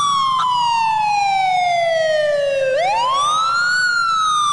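Police siren wailing: a slow falling tone, then about three seconds in a quick rise and another slow fall.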